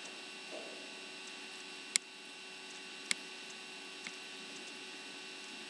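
Steady mains hum and hiss, broken by two sharp clicks about two and three seconds in and a fainter click a second later.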